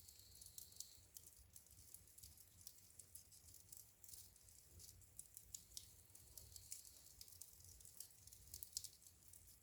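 Wood fire crackling in a fireplace: faint, irregular sharp snaps and pops over a low steady rumble.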